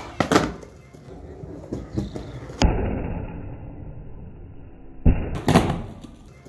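Skateboard clacking on concrete flatground: sharp pops and landings of the board, with wheels rolling on the rough surface between them. Loud clacks come near the start, about two and a half seconds in, and about five seconds in, and the stretch between the last two sounds muffled.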